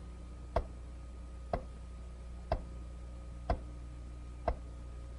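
Steady ticking, one sharp tick about every second, with a low steady hum underneath.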